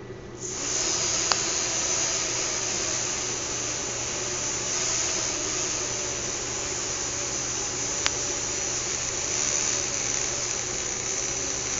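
Small electric motors spinning the propellers of a fischertechnik monorail carriage. They start about half a second in and run on with a steady whirring air noise, with two faint clicks along the way.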